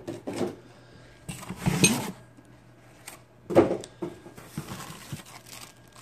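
Packing material being pulled and torn out of a cardboard box, with irregular rustling and tearing. One sharp knock about three and a half seconds in is the loudest sound.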